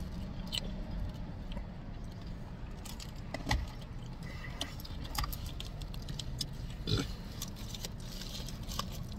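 Crinkling and rustling of a foil fast-food sandwich wrapper being handled, a dense run of small crackles with a couple of louder knocks, over a steady low hum in the car's cabin.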